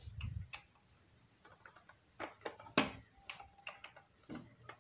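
Faint, scattered clicks and taps of a nut and washers being fitted by hand onto the shaft in a power drill's chuck to fasten a perforated jam-jar lid, the loudest just past halfway; the drill is not running.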